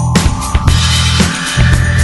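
Background music with a drum kit playing a steady beat, about two strokes a second, over heavy bass, with a tone that rises slowly in pitch.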